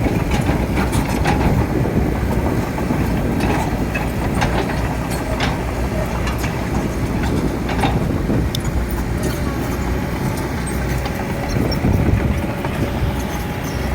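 Heavy diesel earthmoving machinery, an excavator working soil, running steadily with a deep engine rumble and scattered metallic knocks and clanks.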